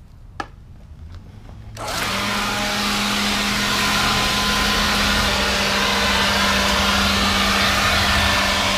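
A leaf blower starts up suddenly about two seconds in and runs steadily: loud rushing air over a steady low hum. A single sharp click comes shortly before it starts.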